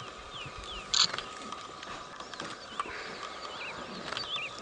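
Bush ambience: a bird calling again and again with short falling whistles, a sharp knock about a second in, and scattered small clicks over a faint steady high hum.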